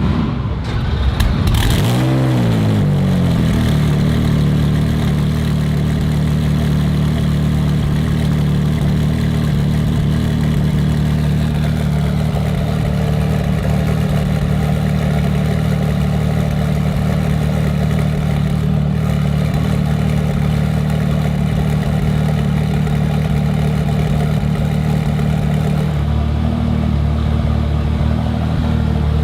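BMW M4 GT3's twin-turbo straight-six race engine: the revs sweep up and back down about two seconds in, then it settles to a steady idle, its tone shifting slightly near the end.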